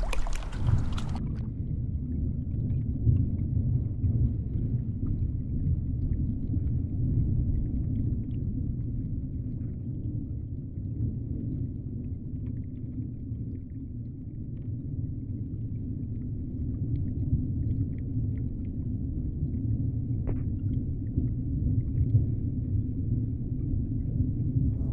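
Surface water sloshing for about a second, then cut off as the action camera goes under; after that, underwater ambience heard through the camera housing: a steady low rumble with faint scattered clicks.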